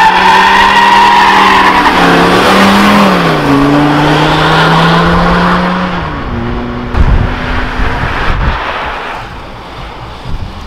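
Mercedes-Benz C-Class estate doing a burnout: engine held at high revs with the tyres squealing, the revs dipping and dropping to a lower steady pitch about three and a half seconds in. After about six seconds this gives way to wind buffeting the microphone.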